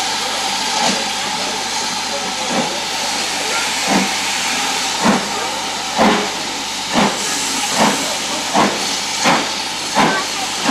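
BR Standard Class 4MT 4-6-0 steam locomotive 75027 starting away with its train: exhaust chuffs that get quicker, from about one every second and a half to more than one a second, over a steady hiss of escaping steam.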